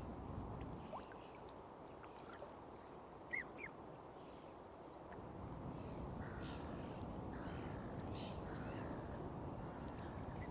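Water birds calling over a steady low rush of background noise: two short high calls about three seconds in, then a run of harsher calls from about six seconds on.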